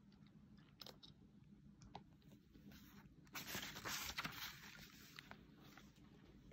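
A picture book's paper page being turned, a brief rustle about three and a half seconds in. Otherwise near silence, with a few faint clicks.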